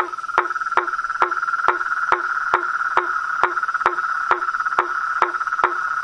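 Toad giving a long, unbroken trill with sharp ticks repeating evenly about twice a second.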